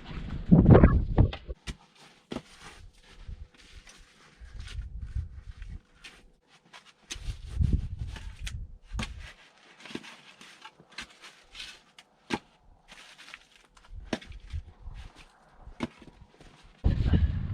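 Footsteps mixed with scattered sharp knocks, irregular rather than a steady rhythm.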